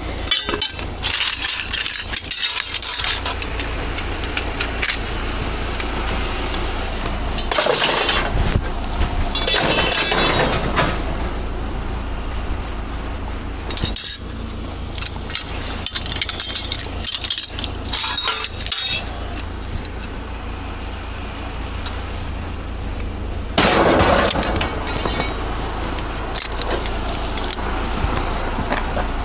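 Pieces of scrap metal, among them a length of pipe, clanking and clattering in several bursts as they are handled and thrown onto a load, over a steady low rumble.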